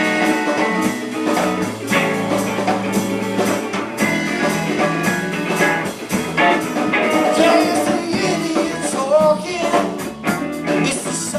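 Band playing an instrumental break of a blues-rock song: guitar over a drum kit, with bending, gliding lead notes in the second half.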